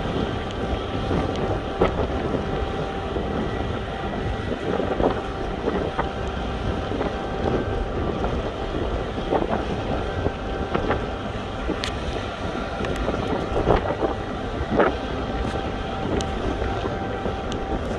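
Wind buffeting the microphone over a steady machinery hum aboard a cargo ship, with a few steady whining tones and scattered short knocks and clanks.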